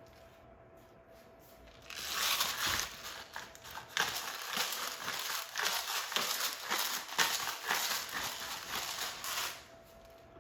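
Irregular crinkling and rustling, dense with small crackles, starting about two seconds in and stopping shortly before the end.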